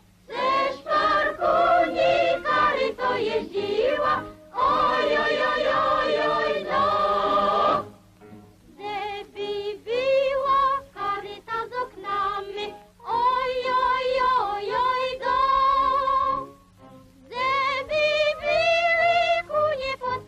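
A choir singing a Polish folk song in phrases of a few seconds, with short breaks between them.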